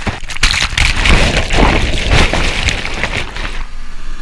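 Breaking surf and churning white water splashing over a phone's microphone: a loud, rough rush broken by many sharp hits, easing off somewhat near the end.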